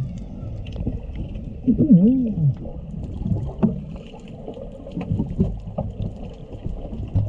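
Humpback whale song heard underwater: a few moans that rise and fall in pitch, the loudest about two seconds in, over a steady low rush of water with scattered faint ticks.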